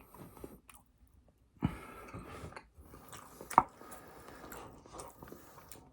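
Close-miked eating sounds: soft chewing that starts after a quiet first second and a half, with one sharp click about three and a half seconds in.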